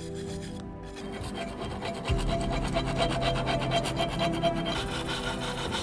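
Hand wire brush scrubbing rust off the metal lid of an old coal iron: a rapid, continuous rasping scrape of steel bristles on rusty iron.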